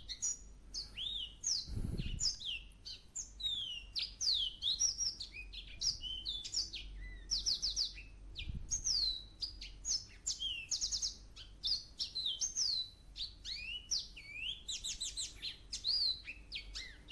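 Songbirds calling continuously: a busy run of quick whistled notes, many sliding down in pitch, mixed with short rapid trills.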